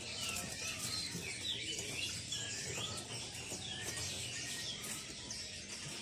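Caged songbirds chirping: many short, quick chirps that glide up and down, scattered irregularly over a steady low background hum.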